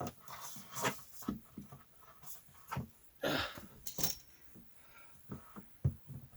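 Scattered light clicks, knocks and scrapes as a power cord and its plug are pushed through a hole into a battery box, with a short breathy rustle about three seconds in.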